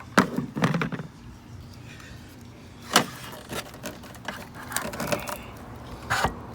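Irregular plastic clicks and knocks from the fuse box (TIPM) housing and its wiring being handled as it is lifted off its mount and turned over, with one sharp click about three seconds in and a few more near the end.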